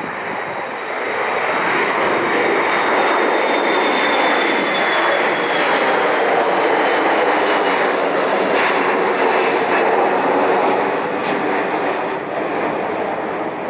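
Jet airliner's engines, a loud rush of noise that builds about a second in and holds, with a high whine sliding slowly down in pitch as the aircraft passes; it eases a little near the end.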